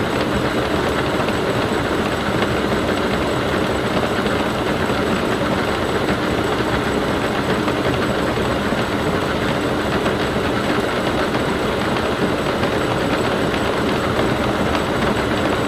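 Defiance horizontal boring mill running with a 5-inch face mill taking a light cut across a welded angle plate, knocking down the high spots in the weld: a loud, steady mechanical running noise.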